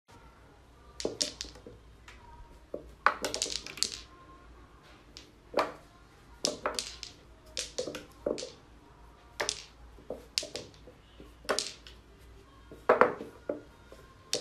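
Small balls on a tabletop toy pool table clacking against one another and knocking on the rails and pockets as a cat bats them with its paw. There are a dozen or so sharp, irregular clacks, some in quick pairs.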